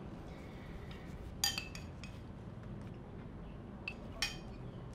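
Spoon clinking against a porcelain bowl while eating: three quick light clinks about one and a half seconds in, then two more around four seconds, over quiet room tone.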